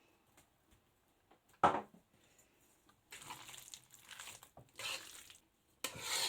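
A spoon stirring and turning a thick chicken and potato curry in a pan, in several short squishy passes, after a single sharp knock about one and a half seconds in.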